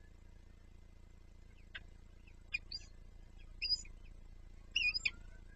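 Small birds chirping: a few short, sharp, high chirps that come singly and in quick clusters.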